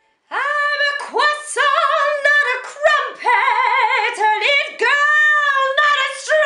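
A woman singing loudly and unaccompanied, in several phrases of held high notes with a wide, regular vibrato.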